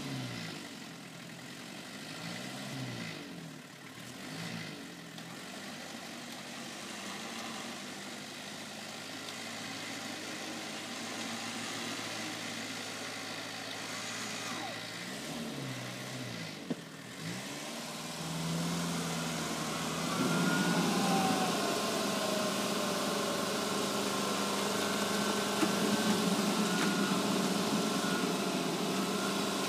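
Off-road vehicle's engine running, its pitch rising and falling with the throttle, then growing louder and steadier about two-thirds of the way through, with a whine that falls in pitch.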